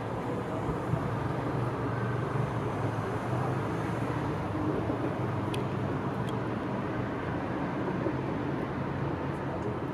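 Steady outdoor city background noise, a low even rumble like distant traffic, with a couple of faint clicks a little past the middle and no clear firework bangs.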